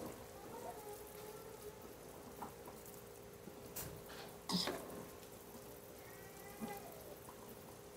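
Quiet clinks and scrapes of chopsticks on a plate and wok as stir-fried noodles are served, with one sharper clink about four and a half seconds in. Under them run a steady hum and the faint patter of a pot of soup bubbling on the gas stove.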